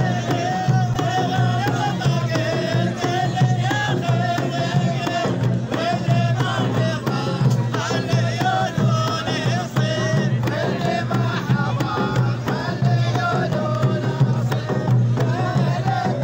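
Traditional Omani folk music: a group of men chanting in unison with a large double-headed drum beaten along with them.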